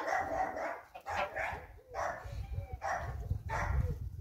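Embden goose honking repeatedly, five or so loud honks in quick succession.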